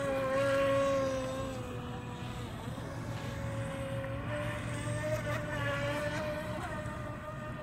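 Feilun FT012 RC speedboat's brushless motor whining at speed over the hiss of its wake. The whine is loudest about a second in as the boat passes close, sags slightly in pitch, then rises again around five seconds in.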